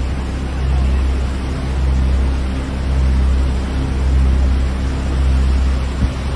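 Swollen river in flood rushing past, a loud steady wash of churning water over a deep continuous rumble.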